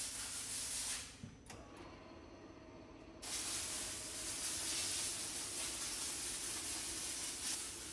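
Air hissing steadily through a vacuum machine's suction line as the chamber holding mixed diatomaceous earth material is pumped down. The hiss drops away about a second in as the door is shut, a few faint clicks follow, and the hiss comes back about three seconds in and runs on.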